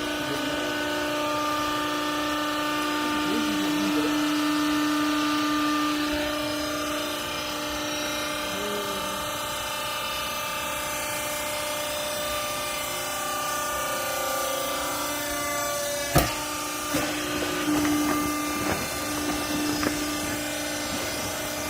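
Hydraulic vertical clothing baler running: its motor and pump give a steady whining hum. A sharp knock comes about 16 seconds in, followed by a few lighter clunks.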